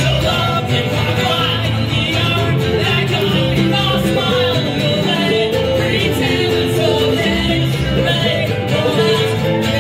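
Live acoustic string band playing an upbeat bluegrass-style song: strummed acoustic guitar, mandolin and plucked upright bass, with a man singing lead.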